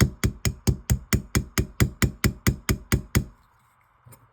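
Small hammer tapping rapidly and evenly on a pin through a straight razor's scales, about four light strikes a second, peening the pin over; the tapping stops a little past three seconds in.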